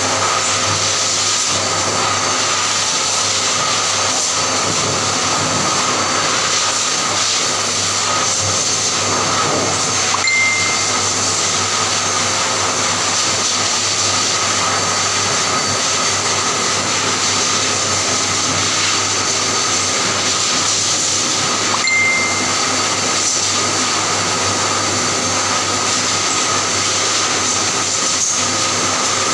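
Electric grooming clipper fitted with a vacuum hose, running steadily as it shaves a Persian cat's coat, with the vacuum's suction as a constant whir. A short high tone sounds twice, about ten seconds in and again a little past twenty seconds.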